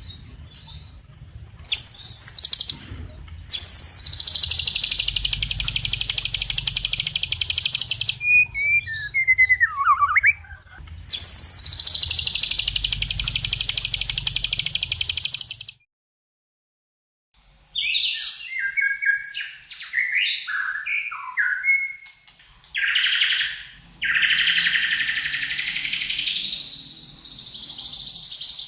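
Songbird song played as a masteran training recording: two long, harsh, rapidly rattling high trills of about four seconds each, then after a brief silent cut, a run of varied short chattering and whistled phrases.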